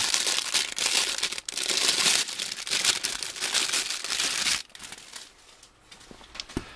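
Thin clear plastic packaging bag crinkling and crackling as it is handled and opened around a plastic fish gripper. The crinkling stops about two-thirds of the way in, and only faint handling noise follows.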